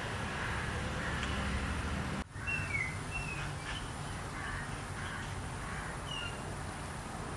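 Outdoor ambience: a low steady rumble, broken by a brief dropout about two seconds in, followed by short high bird chirps, a few in quick succession and one more later on.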